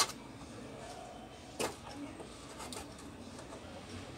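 Sharp clicks and knocks from handling an opened LED TV's panel: two louder ones about a second and a half apart, then a few fainter ticks, over a steady low background hiss.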